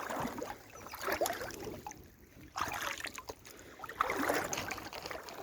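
Wellington boots wading through a shallow brook: irregular splashing and sloshing of water, with a brief lull about two seconds in.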